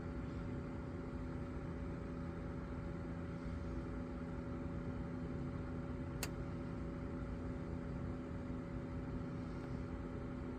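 Steady low mechanical hum with two constant tones, broken once by a single sharp click about six seconds in.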